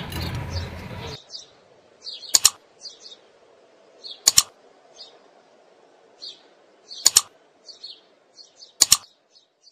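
Four sharp mouse-click sound effects, each a quick double click, about two seconds apart. Faint high chirps come between them, after a noisy background sound cuts off about a second in.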